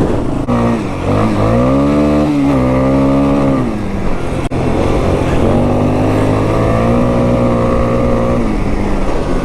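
2001 Yamaha Warrior 350 ATV's single-cylinder four-stroke engine on its stock exhaust, revving up twice under throttle. Each time it holds its pitch, then drops back. It runs smoothly after its carburetor cleaning.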